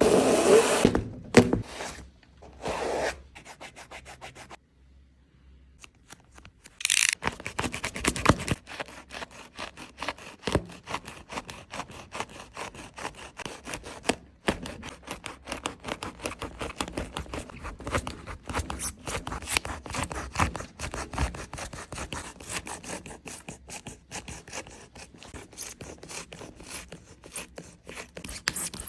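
A Nike Kyrie 8 basketball shoe being cut and pulled apart by hand, with rough rubbing and sawing strokes through its materials. A short quiet pause about five seconds in is followed by fast, continuous repeated strokes.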